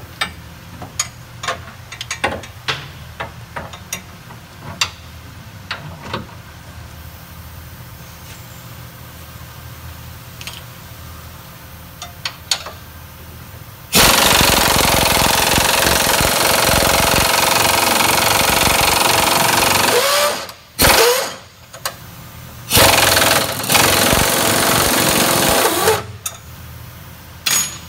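Pneumatic impact wrench hammering on a bolt: a long run of about six seconds, a short burst, then a run of about three seconds. Before it come scattered light clinks of metal tools.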